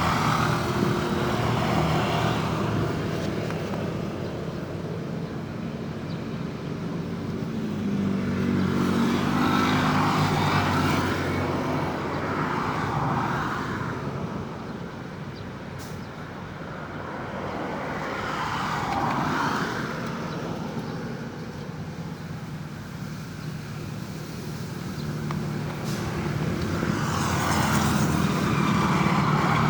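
Road traffic: vehicles passing one after another, engine rumble and tyre noise swelling and fading about four times, loudest as each goes by.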